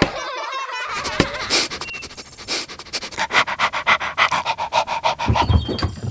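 Dog panting in quick, short breaths, a steady run of rapid puffs.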